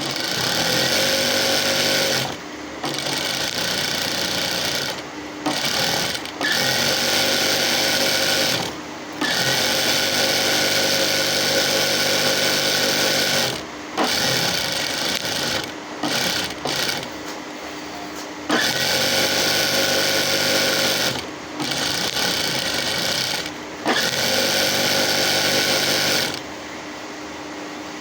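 Sewing machine stitching with a hemmer (funnel) foot, running in runs of a few seconds and stopping briefly between them, again and again.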